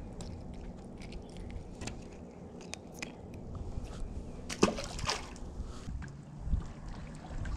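A small fish tossed back into the lake lands with a light splash about halfway through. Around it there is a low steady rumble and scattered small clicks of handling.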